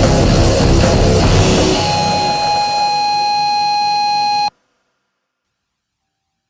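Loud heavy metal music with distorted guitar and drums, thinning into a single held, ringing note that cuts off suddenly about four and a half seconds in, then silence.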